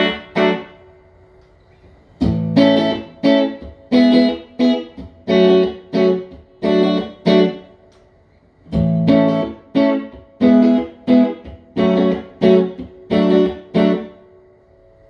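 Electric guitar, a Fender Player Plus Telecaster played clean through a Fender Tone Master Super Reverb amp: chords struck one at a time, each ringing briefly and dying away. The chords come in two phrases with short pauses between them, and the playing stops near the end.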